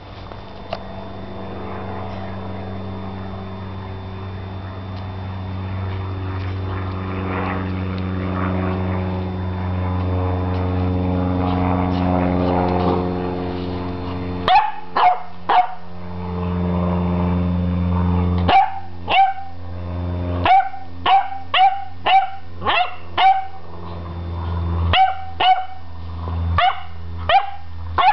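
Beagle puppy barking in short, sharp barks, first three in a row about halfway through, then quick runs of barks about half a second apart. A steady low motor hum runs underneath throughout.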